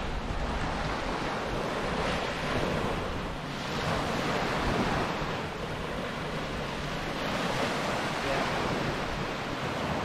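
Small Gulf waves washing onto the sand in a steady hiss, with wind buffeting the microphone.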